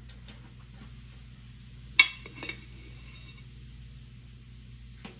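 A glass jar of baking soda clinks as a scoop works at its rim: one sharp, ringing clink about two seconds in, then a lighter clink half a second later.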